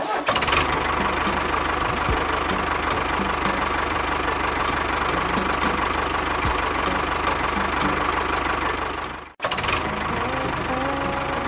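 A small motor running steadily with a faint, even ticking and a steady whine. It cuts out for an instant about nine seconds in, then carries on.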